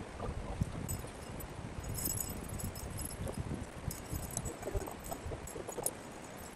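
Light metallic clinks and jingles as steel tent stakes and a tent pole are handled, with rustling of guy ropes, over a low rumble of wind on the microphone.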